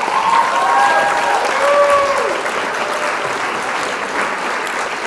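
Crowd applauding, with a few whistles and voices riding over the clapping in the first two seconds.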